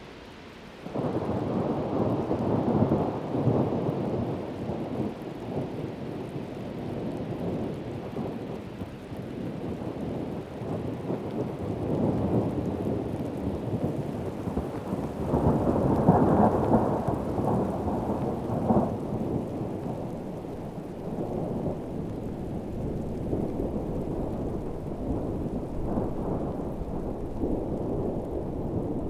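Thunderstorm: long rumbling thunder over heavy rain, starting suddenly about a second in and swelling again around the middle.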